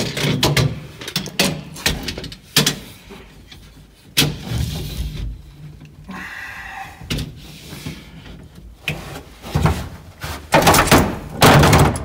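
Repeated knocks, clunks and rattles of seat belt hardware and tools being worked against the bare steel door pillar of a 1955 Chevy 210 sedan, loudest in a cluster near the end.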